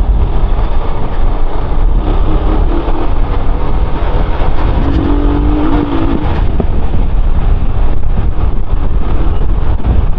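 Motorcycle being ridden, its engine running under steady heavy wind rumble on the microphone.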